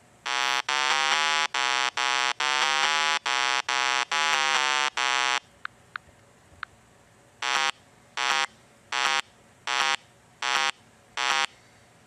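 Buzzy electronic beeps: a quick run of about fourteen tones stepping between pitches, then three faint clicks, then six short beeps evenly spaced about three-quarters of a second apart.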